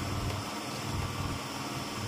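Wind buffeting the microphone over a steady rushing hiss, with low rumbles that swell and fade about once a second.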